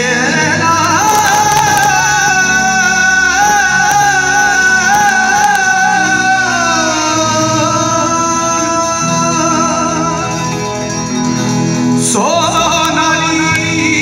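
Live rock band through a PA: a male singer holds long, wavering sung notes over guitars and drums. The line steps down about halfway, and a new rising phrase begins near the end.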